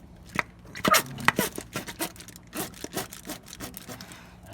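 A plastic squeeze bottle of syrup being squeezed out: an irregular run of squelching, sputtering squirts and sharp clicks.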